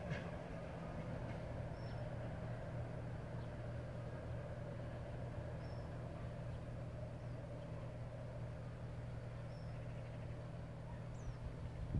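Diesel-hauled freight train receding into the distance: a low, steady engine hum with fading rolling noise from the rails. A few short bird chirps sound above it.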